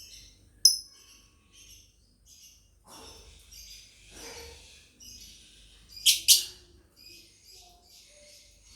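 Lovebirds chirping in many quick, short calls, with one sharp loud chirp under a second in and two loud shrill chirps close together past the middle.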